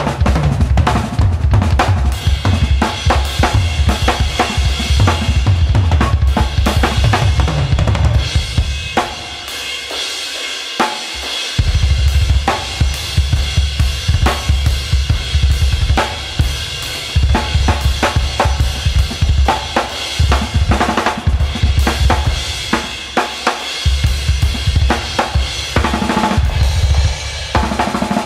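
Full drum kit played in a steady groove, kick and snare under a wash of cymbals that includes an Istanbul Mehmet 20-inch Legend Dry Series crash/ride with a dry, controlled wash. The kick drops out for about two seconds some nine seconds in, then the full groove comes back.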